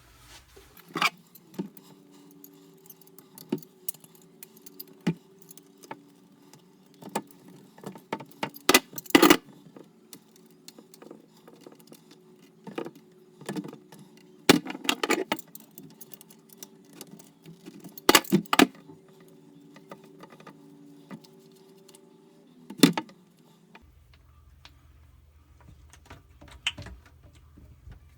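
Small metal plumbing parts and tools clinking, tapping and clanking irregularly as brass faucet connection fittings are worked loose and pulled out, over a steady low hum that stops near the end.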